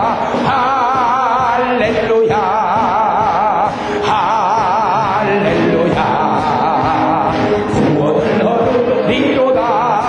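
A church congregation singing a praise chorus together, led by a man singing into a microphone with a wide vibrato, and clapping along in time.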